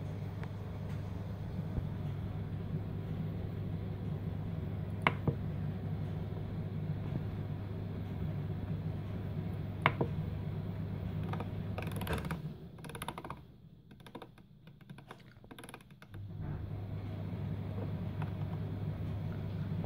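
Clicks of buttons and the browse knob on a Pioneer XDJ-RX DJ controller. There are two sharp single clicks about five seconds apart, then a quick run of light clicks. Under them runs a steady low hum that drops out for a few seconds near the middle.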